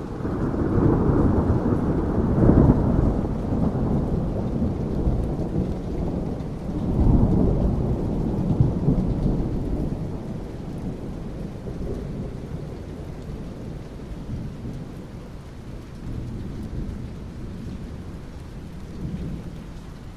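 Rolling thunder over steady rain on asphalt: a low rumble that swells at once, peaks again about seven seconds in, and slowly dies away.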